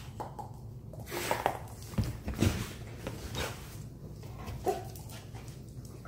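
A Dalmatian giving short cries at a rolling noise-making toy ball, mixed with the ball's own noises: about five brief sounds spread over a few seconds, the loudest near the middle.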